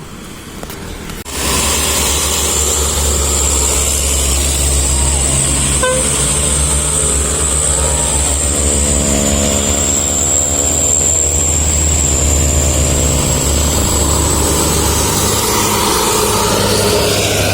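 Large bus's diesel engine running loud and close. The deep rumble starts abruptly about a second in, with a steady high-pitched whine above it, and the engine note dips and rises again in the middle.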